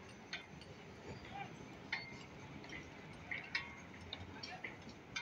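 Distant outdoor city ambience heard from high up: a low steady background rumble, broken by short, sharp high chirps about every second and a half.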